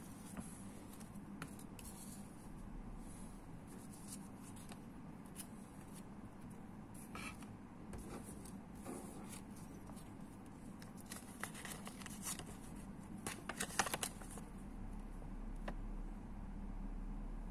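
Paper and card being handled: light rustling and small clicks from a folded paper instruction leaflet and product cards, with a louder flurry of rustling about three quarters of the way through, over a faint steady hum.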